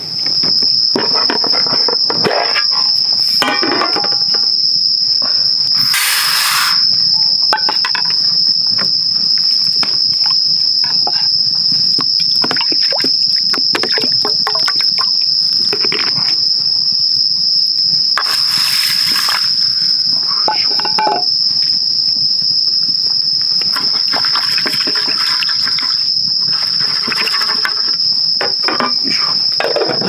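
A steady, high-pitched trill from a chorus of insects, unbroken throughout, with scattered small clicks and knocks of handling. There are two short rushing noises, one about six seconds in and one around eighteen seconds.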